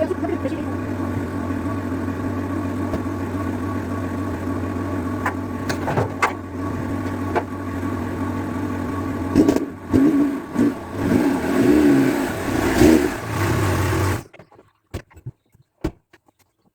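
VAZ-2106 (Zhiguli) inline-four engine idling steadily; the owner says its valves still tap slightly and need adjusting. Near the end the sound swells unevenly a few times, then cuts off abruptly, leaving a few faint clicks.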